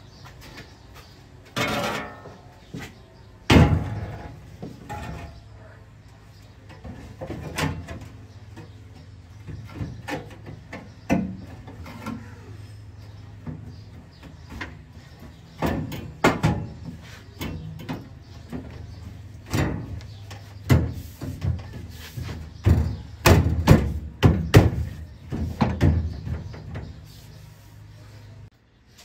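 New sheet-metal doghouse panel being test-fitted into a Jeep FC 170 cab: irregular metallic clanks, bangs and scrapes as it is shifted and pressed into place, loudest about three seconds in and again in a cluster near the end. A steady low hum runs underneath.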